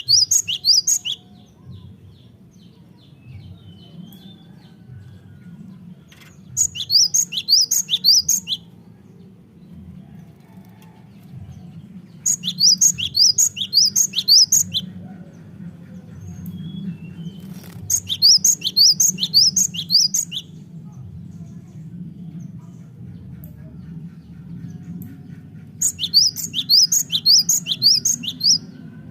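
Cinereous tit (gelatik batu) singing in vigorous bursts: five phrases of rapid, high repeated notes, each lasting about two seconds and coming roughly every six seconds, over a steady low hum.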